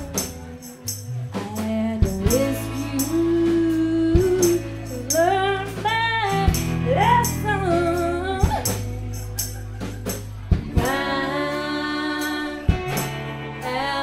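Live band music: singing over a sustained electric guitar, with a tambourine struck in a steady rhythm.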